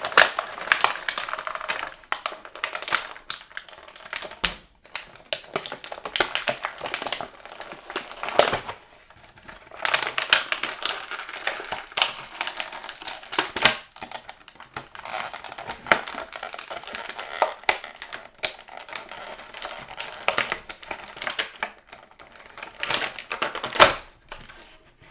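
Plastic figure packaging crinkling and crackling as an action figure is worked out of its box, with many irregular clicks and snaps and a few short pauses.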